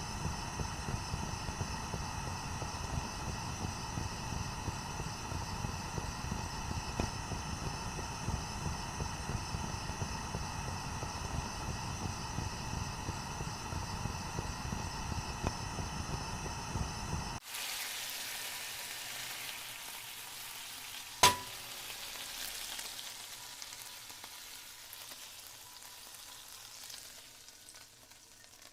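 Food frying in a pan, a dense crackling sizzle. After a sudden cut it becomes a thinner, fading hiss with a single sharp clink about 21 seconds in.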